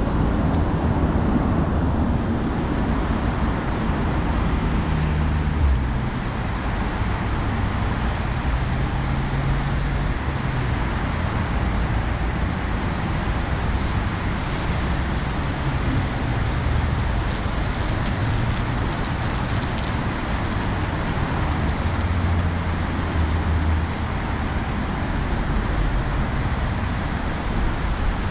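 Steady rumble and hiss of road traffic, even throughout, with no single vehicle standing out.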